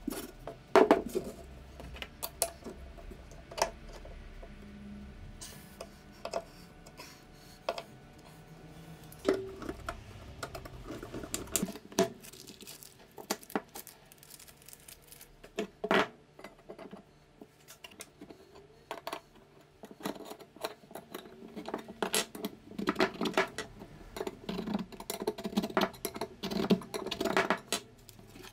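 Metal drill parts and hand tools clinking, tapping and knocking on a wooden workbench as they are handled and fitted during reassembly, with scattered single clicks and a busier run of handling near the end.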